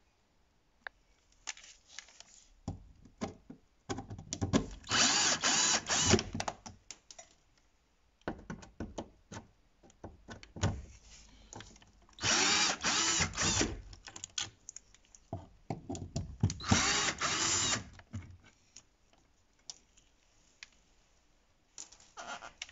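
Cordless drill-driver with a T30 Torx bit backing out the three screws that hold an electric window motor, in three whirring runs of about a second and a half each, with clicks and knocks of the bit and parts between them.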